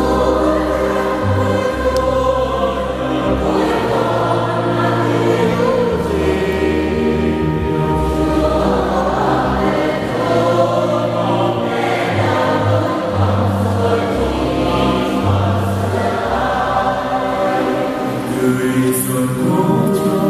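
A choir sings a slow hymn over an accompaniment of held chords, with deep bass notes that change every second or two.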